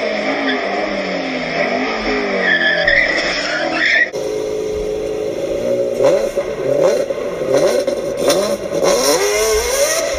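Engines revving up and down in quick swells. Then, after a cut about four seconds in, a Lamborghini's engine revs hard in repeated rising and falling sweeps as the car spins.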